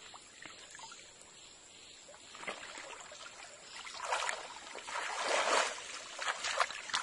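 Water splashing and sloshing as a person wades through a shallow muddy stream, quiet at first, then louder splashes from about four seconds in for two to three seconds as he moves through the water and steps up out of it.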